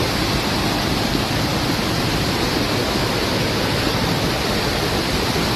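Floodwater rushing in a steady, loud, unbroken torrent.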